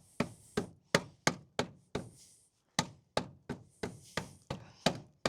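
Repeated sharp knocks, about three a second with a brief pause near two seconds in, as a 3D-printed cap is kicked onto a mini-split mount to force it into place.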